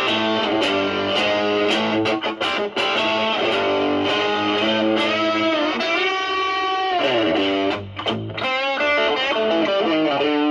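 Stratocaster with single-coil pickups played through a Pro Co Brat pedal with an OP07 op-amp chip into a Marshall Valvestate amp: a run of single-note guitar lines, with a held note shaken with vibrato about six seconds in, followed by bent notes.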